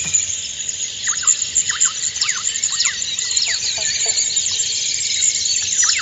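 A chorus of small birds chirping, many quick, sharp calls sliding downward in pitch and overlapping several times a second, over a steady high hiss.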